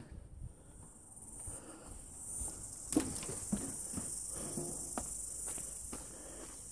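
Steady high-pitched chirring of insects, rising in after a second or two, with a few scattered footsteps and light knocks on a wooden deck.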